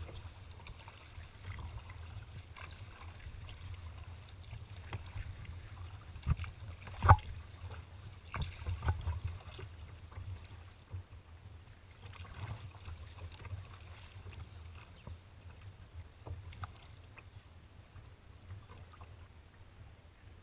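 Kayak moving through choppy water: small waves slapping and splashing against the hull over a steady low rumble, with a sharp knock against the boat about seven seconds in.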